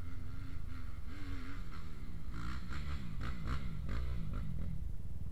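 Off-road motorcycle engine revving, its pitch rising and falling several times over a steady low rumble.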